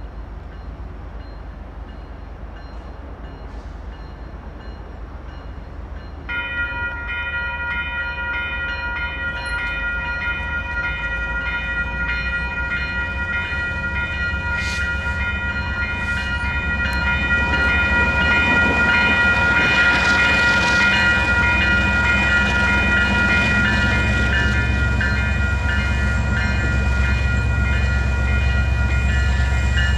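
The railroad crossing's WCH Type 4 electronic bells switch on about six seconds in and keep ringing, a fast, high, repeating ding that signals an approaching train. Over the second half, a low rumble from the Union Pacific freight train's diesel locomotives builds and grows louder as they near the crossing.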